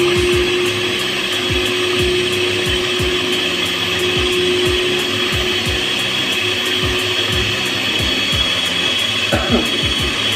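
Electric stand mixer running steadily, its twin beaters churning a thick mixture of whipped cream, condensed milk and crushed cookies in a stainless steel bowl. A steady pitched motor hum fades out about three-quarters of the way through.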